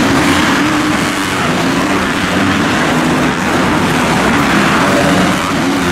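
Several motocross bikes' engines revving and running together as they race around a dirt track, their pitch rising and falling with the throttle.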